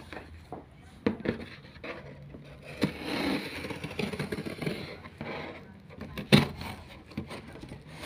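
A box cutter slicing along the packing tape of a cardboard box: a scraping cut of a few seconds, with a few sharp knocks against the cardboard.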